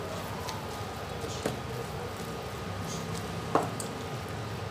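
Spatula stirring and scraping a thick, wet onion-tomato masala around a metal pot, with a soft squishing of the mixture. The spatula knocks against the pot a couple of times, most sharply about three and a half seconds in.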